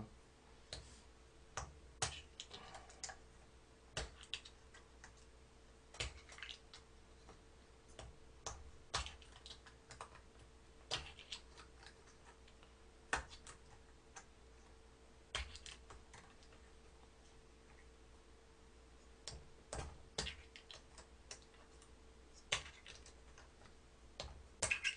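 A thin stick punching holes in the foil lids of small yogurt-drink bottles, one bottle after another. Each gives a short sharp click, roughly one every one to two seconds, over a faint steady hum.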